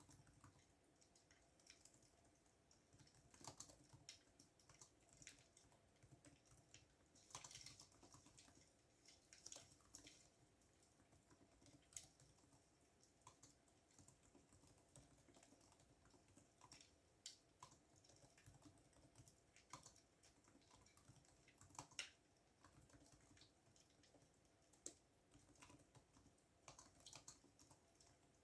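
Computer keyboard being typed on, faint and close: irregular keystroke clicks with short pauses, over a faint steady hum.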